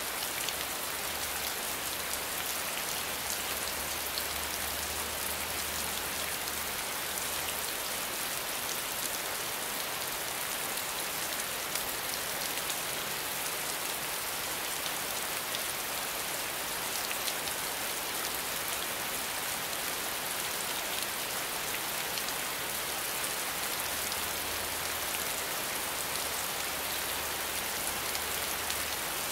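Steady rain falling on wet ground: an even hiss made of many small drop impacts splashing into shallow puddles.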